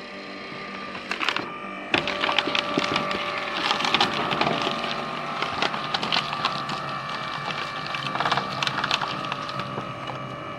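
Homemade hydraulic log splitter driving logs through its wedge: dense cracking and splintering of wood, starting about two seconds in, over a steady machine hum.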